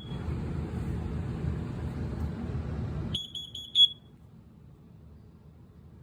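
A carbon monoxide detector being tested gives a quick burst of about five high-pitched beeps a little past halfway. Before the beeps a low rushing noise runs for about three seconds and stops as they begin.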